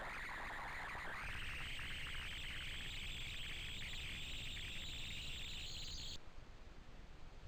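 Strange frequency noise on a trail camera's audio: a hissing band of sound that climbs steadily in pitch, then cuts off suddenly about six seconds in.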